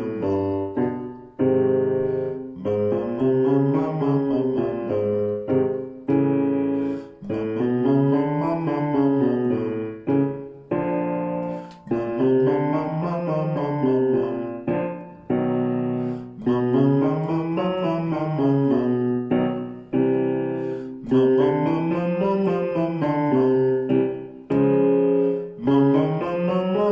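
Piano playing a vocal warm-up exercise: short up-and-down scale figures recurring about every four to five seconds, each followed by held chords.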